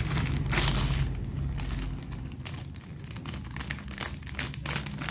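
Plastic chips packet crinkling as it is handled and pressed through a battery-operated mini heat sealer: one louder crinkle about half a second in, then lighter crackling.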